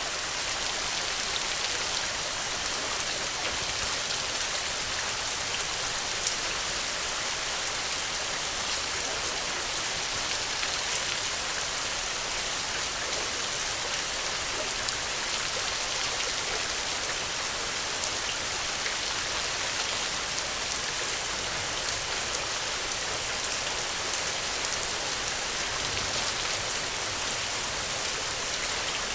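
Steady rain falling, an even hiss with small scattered drop ticks.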